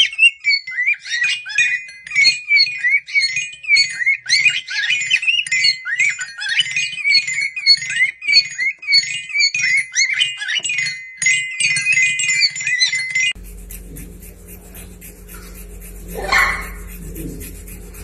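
Cockatiel chirping and whistling rapidly in short pitch glides, mixed with ringing notes from a toy xylophone's metal bars. About 13 seconds in it cuts off abruptly to a steady low hum with one brief rising-and-falling call.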